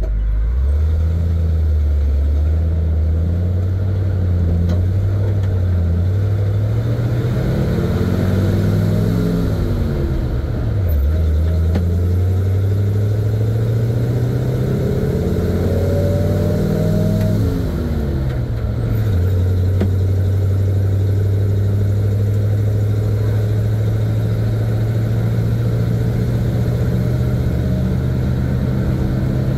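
1970 Chevy C50 dump truck's engine pulling away through the gears, heard from inside the cab. The engine note climbs in pitch and drops sharply twice at upshifts, about a third of the way in and again past the middle, then holds steady at cruising speed.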